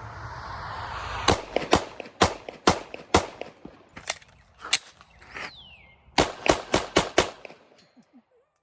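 About a dozen 9mm shots from a Glock 19-pattern pistol firing regular target ammo. First comes a string of five about half a second apart, then two single shots, then five more in quick succession.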